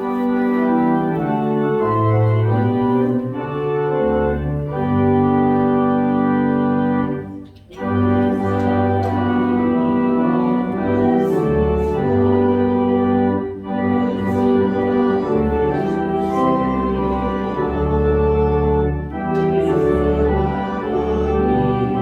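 Organ playing slow music in sustained, changing chords, with a brief break about eight seconds in and shorter ones later.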